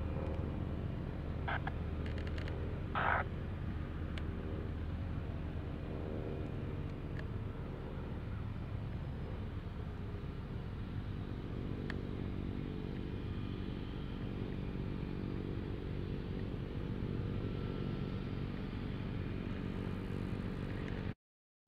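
Mooney M20J's four-cylinder Lycoming engine and propeller droning steadily in flight, with two short high chirps a couple of seconds in.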